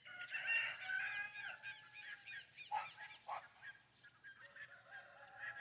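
Birds calling at daybreak: many quick, repeated chirps over one another, with a couple of short, harsh squawks about three seconds in.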